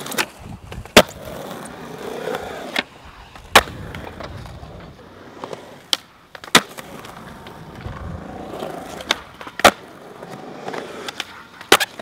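Skateboard wheels rolling on concrete, with sharp clacks of the board popping and landing a few seconds apart, five loud ones and some smaller clicks.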